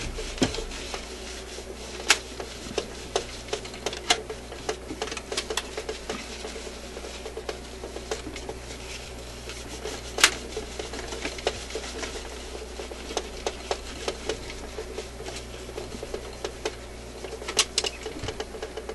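Irregular small clicks, taps and rubbing of hands working on a record player's tone arm and its new phono cartridge, with a few sharper clicks about two seconds in and about ten seconds in, over a steady low hum.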